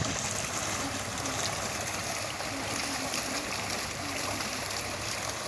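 Tubewell water gushing steadily from the outlet pipe into a small bathing tank.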